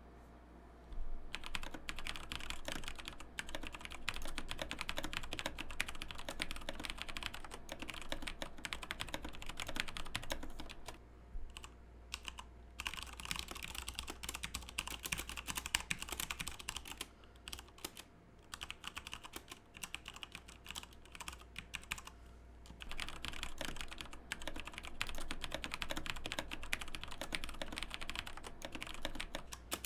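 Fast typing on mechanical keyboards with tactile switches, Cherry MX Brown and Razer Orange keys tested back to back: dense runs of key clicks and bottom-out clacks, broken by a few short pauses between runs.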